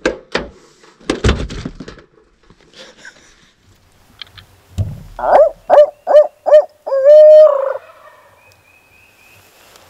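A couple of car-door thunks at the start. About five seconds in comes a loud hooting sequence close to the microphone in a barred owl's cadence: five short hoots, then a long drawn-out final hoot.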